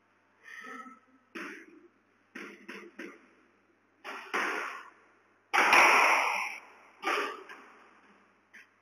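Squash ball being struck with a racket and hitting the court walls: a run of sharp smacks with a short echo, irregularly spaced, the loudest about halfway through.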